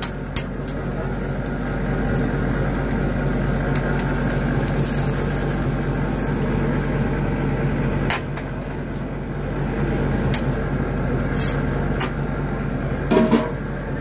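Steady hiss and low hum at a hot street-food grill. A few sharp metal clicks and scrapes of a spatula against the grill grate come later on, the loudest near the end.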